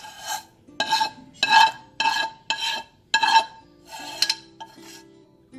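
A spatula scraping thick caramel filling out of a metal saucepan, in short repeated strokes about two a second, the pan ringing with each stroke.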